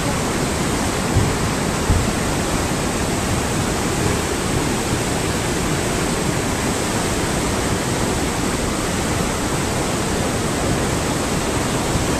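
Steady rushing roar of a mountain river in flash flood, its muddy, debris-laden water running high and fast. Two brief low thumps come about one and two seconds in.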